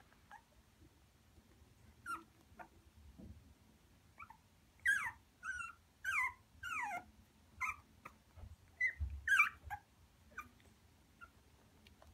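Chiweenie puppies whimpering: a run of about ten short, high cries, each sliding down in pitch, bunched in the middle of the stretch.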